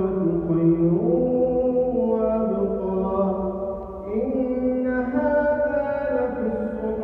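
An imam chanting Arabic in a man's voice, drawing out long melodic notes that step up and down in pitch, with a brief pause for breath about four seconds in.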